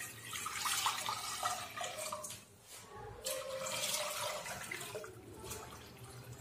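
Water poured from a glass jug into a black non-stick cooking pot, splashing as the pot fills. The pour breaks off briefly about two and a half seconds in, then resumes.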